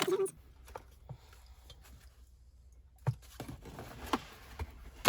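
Scattered light clicks and taps of plastic trim pieces and wiring-loom connectors being handled and fitted inside a car door, with a sharper knock near the end.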